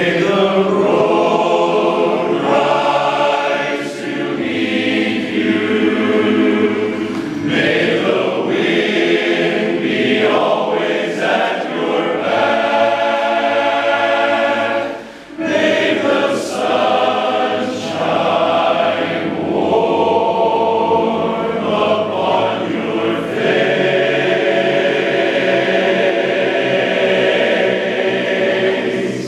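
Large men's barbershop chorus singing a cappella in close four-part harmony, holding sustained chords, with a brief break between phrases about halfway through.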